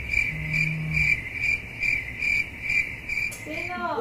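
Cricket chirping in an even, high-pitched pulse, about three chirps a second, stopping just before the end.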